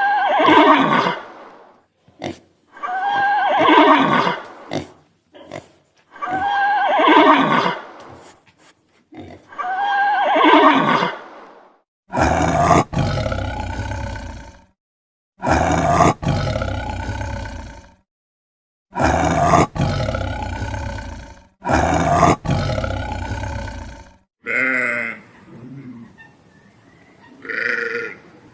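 A series of animal calls. First come four pitched calls about three seconds apart, each falling in pitch. Then come four louder, rougher calls, each lasting about two seconds, and a few shorter, fainter calls near the end.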